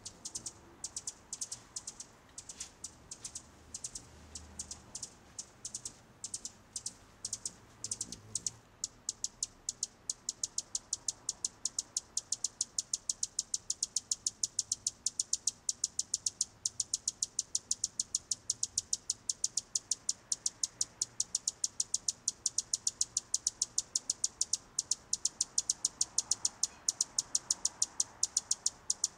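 Tiny, high-pitched peeps, most likely a hummingbird nestling begging to be fed. They come irregularly at first, then about eight seconds in they grow louder and settle into a rapid, even run of about three or four a second.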